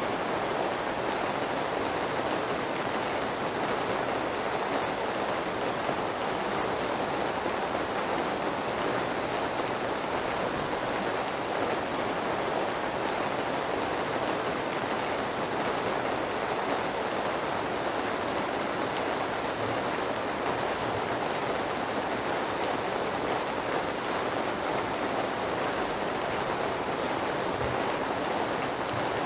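Steady rain noise: an even, unbroken hiss of falling rain with no single drops standing out.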